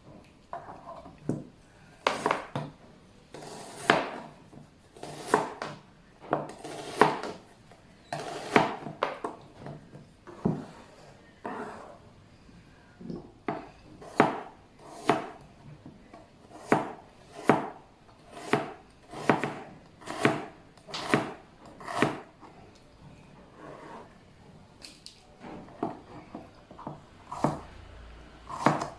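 A kitchen knife cutting vegetables on a wooden cutting board: separate knocks of the blade on the board, about one a second with some in quick pairs.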